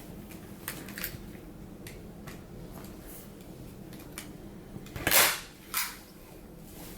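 Staple gun fired twice, two sharp snaps about five and six seconds in, driving staples through the armrest cover. Lighter clicks of handling come before them.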